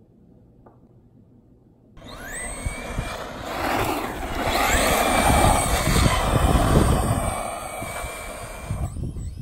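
Traxxas Rustler RC truck driving on loose dirt: its motor and drivetrain whine, rising and falling in pitch with the throttle, over the rumble of the tyres. The sound starts abruptly about two seconds in and cuts off just before the end.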